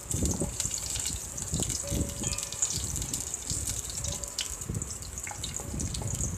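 Onion pieces sizzling in hot oil in a steel pan with a steady hiss, while a wooden spatula stirs them and scrapes against the pan in repeated irregular strokes.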